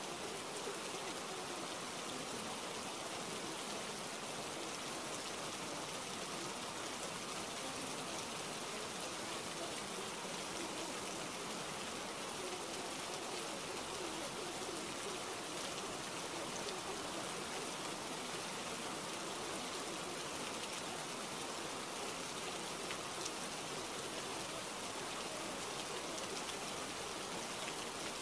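Steady, even hiss of falling rain.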